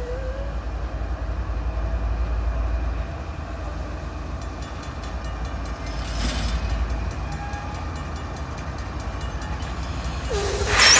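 Two approaching CN diesel freight locomotives rumbling steadily. From about halfway, a grade-crossing bell rings with regular strokes. Near the end the locomotive horn starts to blow.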